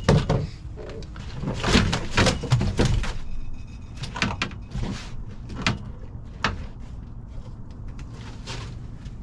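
Irregular knocks, thumps and scrapes against a small fishing boat's hull and deck as a catfish is hauled aboard, thickest in the first three seconds and then scattered single knocks, over a steady low rumble.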